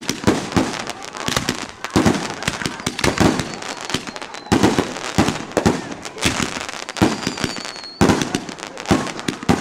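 Aerial fireworks going off in a rapid string of bangs, several a second, with dense crackling between them. A thin high whistle sounds briefly about seven seconds in.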